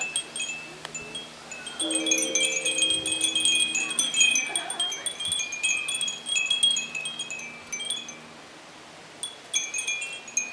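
Many Japanese fūrin wind bells jingling in the breeze, a constant high tinkling with quick clapper clicks. Under them a deeper bronze temple bell (bonshō) is struck about two seconds in and rings slowly down over several seconds. It is struck again at the very end.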